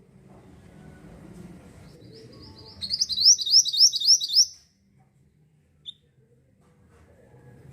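A mantenan (pied bushchat) sings one short, fast phrase of about seven quick repeated sweeping notes, lasting under two seconds, midway through.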